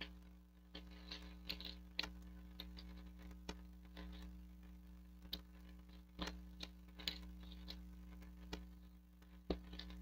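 Faint, irregular clicks and taps of a smartphone and metal tweezers being handled on a silicone repair mat, about a dozen over the stretch, over a steady low electrical hum.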